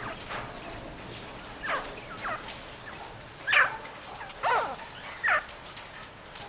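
Caged francolin calling: five loud, harsh notes, each a quick downward sweep, spaced under a second apart, with the loudest about halfway through.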